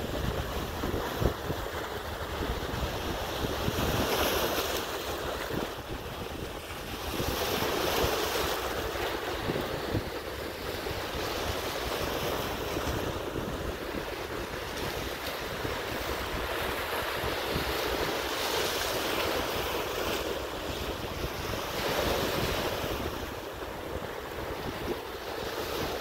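Sea of Cortez surf breaking and washing over rock ledges at the shoreline, swelling louder every few seconds as each wave comes in. Wind buffets the microphone throughout, adding a low rumble.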